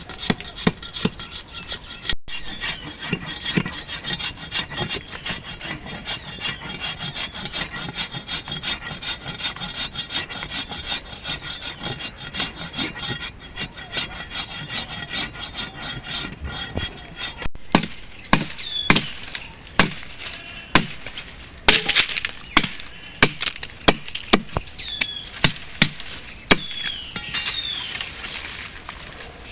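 Wood being worked by hand, with a dense rasping, rubbing sound. From about eighteen seconds in come a run of sharp knocks, with short falling bird chirps over it.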